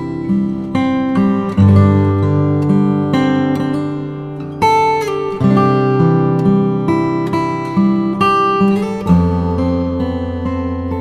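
Background music: acoustic guitar playing plucked and strummed chords with a steady beat.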